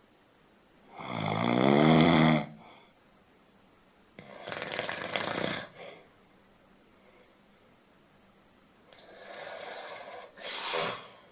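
Snoring in slow, uneven breaths. About a second in comes the loudest: a rattling, pitched snore that rises in pitch over about a second and a half. A breathier, noisier breath follows around four seconds in, and another snoring breath comes near the end.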